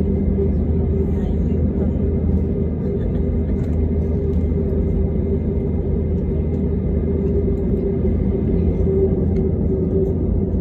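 Steady rumble and hum of an Airbus A320neo heard from inside the passenger cabin, engines and airframe running at an even, unchanging level.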